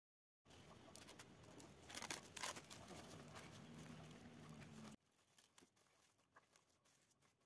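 Plastic cling film being pulled off its roll, torn and stretched over a plastic mixing bowl of dough, crinkling, loudest about two seconds in. From about five seconds in it drops to faint crackles and small taps as the film is smoothed onto the bowl's rim.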